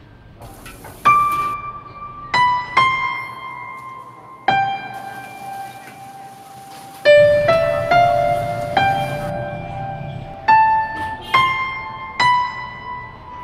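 Background piano music: a slow melody of single struck notes, each left to ring and fade, with a few notes sounded together about seven seconds in.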